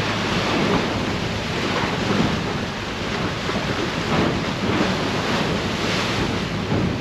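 Drift ice floes grinding and crunching against the hull of an icebreaking boat as it pushes through pack ice, a continuous rumble with irregular swells. Wind buffets the microphone throughout.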